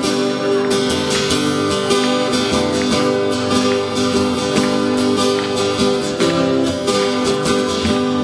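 Two acoustic guitars playing an instrumental passage: strummed chords with sharp, evenly spaced percussive strokes on the guitars standing in for drum hits.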